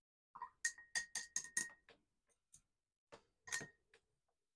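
A paintbrush tapped against a hard rinse-water container: five quick clinks about a quarter second apart, each with a short ringing tone, then a couple of faint ticks and one more clink a couple of seconds later.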